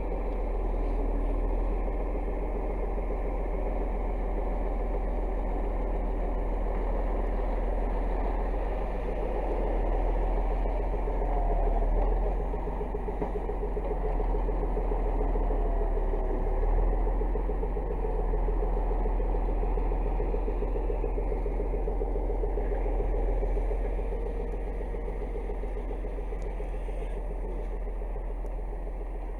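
DT-75 crawler tractor's diesel engine running steadily, a deep hum with a clattering rattle over it.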